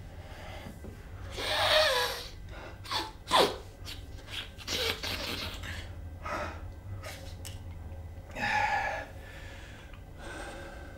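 A man sniffing hard through his nose several times in short bursts, the loudest about two and three and a half seconds in, then a loud gasping breath a little before the end.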